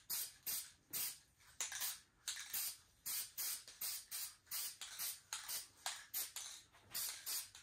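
Aerosol spray-paint can hissing in short bursts, about two or three a second, as light coats are laid on.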